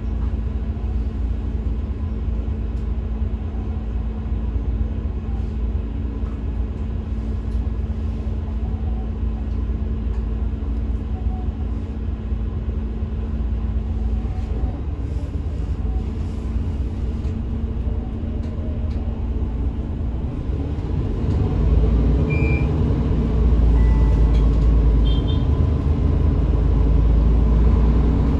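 Diesel engine of a Mercedes-Benz Citaro G C2 articulated bus, heard from inside the cabin, idling with a steady low hum while the bus stands. About three-quarters of the way through it gets louder and deeper as the bus pulls away through its Voith automatic gearbox.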